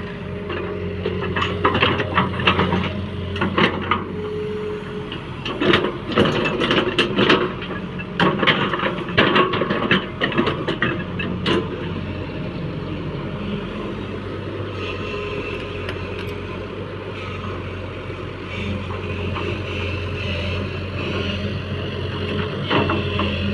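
Backhoe loader's diesel engine running steadily, with many sharp knocks and clatters during the first half, typical of the bucket working while loading mud.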